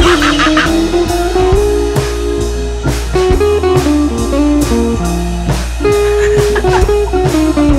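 Background music: a plucked electric guitar melody in a bluesy style over a steady drum-kit beat.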